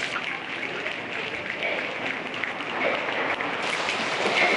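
A large audience making a rainstorm sound together with their hands, patting their legs, a dense, even noise of many hands like heavy rain. It grows brighter and fuller about three and a half seconds in.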